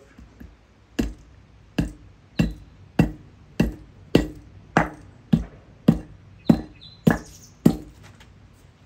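A dozen sharp, evenly spaced blows, about one every 0.6 s, smashing small Duracell batteries open.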